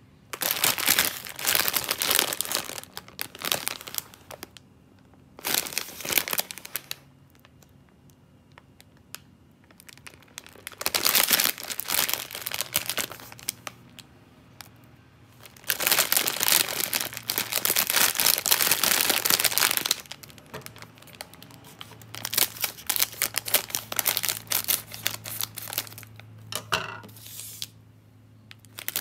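Plastic bag of chilled yakisoba noodles crinkling as it is handled and squeezed, in several bouts separated by short quiet gaps.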